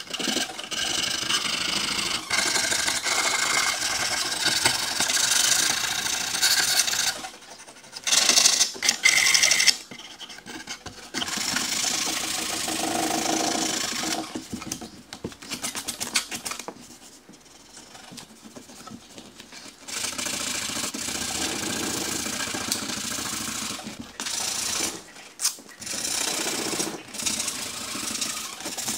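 Sandpaper rubbed by hand along the edges of MDF panels, a dry scratchy hiss in spells of quick back-and-forth strokes with short pauses between them.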